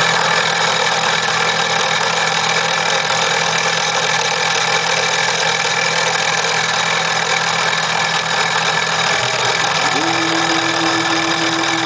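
X2 mini mill converted to CNC, its spindle running steadily as a small bit engraves wood. About ten seconds in, a steady whine rises in and holds.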